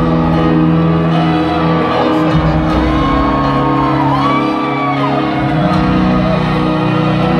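Live stadium performance of a rock piano ballad, heard through the PA: sustained piano and keyboard-string chords. About three seconds in, a fan close by gives a long whoop that rises and then falls.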